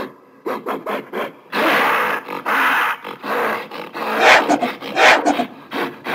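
Gorilla vocalizing: a few short grunts, then longer rough, breathy growling calls starting about one and a half seconds in, the loudest near the end.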